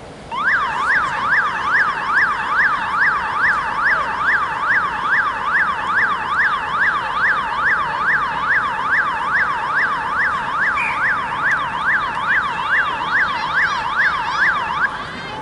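Electronic siren in a fast yelp, its pitch sweeping up and down about three times a second. It starts suddenly and cuts off shortly before the end.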